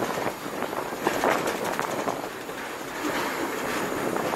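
Passenger train rolling along the track, heard from inside an open-sided coach at the rear of a steam-hauled train: a steady rumble of wheels on rails with irregular clicks and clacks.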